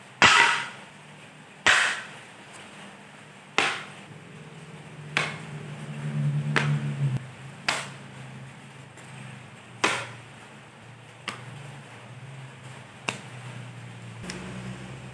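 Thin plywood sheets laid down one at a time onto ceramic floor tiles and onto each other, giving about eight sharp wooden clacks at uneven intervals of one to two seconds, the first the loudest. A low hum rises and fades in the background in the middle.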